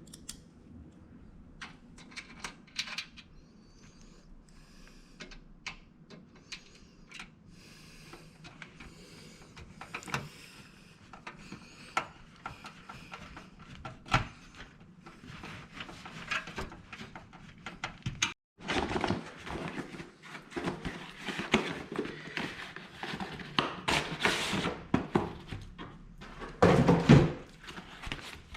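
Irregular clicks, taps and rustles of computer hardware and cables being handled and fitted into a PC case. The handling grows louder and busier after a brief dropout past the middle, with a heavier thud near the end.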